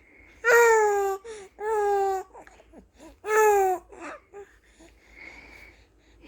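A 78-day-old baby vocalizing: three loud, drawn-out calls, each falling in pitch, then softer little sounds.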